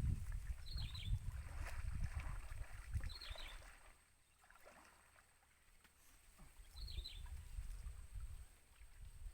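Outdoor ambience: uneven low rumbling, with a short high chirping call repeated three times a few seconds apart. The rumbling eases off about four seconds in and picks up again near the end.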